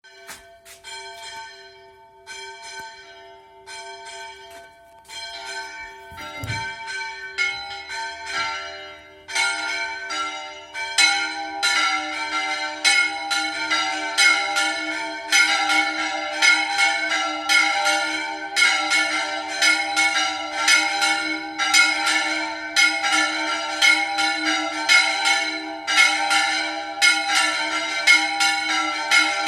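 Church bells of San Juan ringing: the small swinging bell (esquila menor) strikes alone at first with uneven, very strange-sounding strokes, then about ten seconds in more bells join in a fast, louder repique of three bells. A brief low thud about six seconds in.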